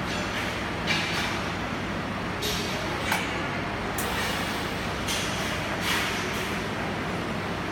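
Arc welding: a steady crackling hiss from the welding arc, with a few brief surges in it.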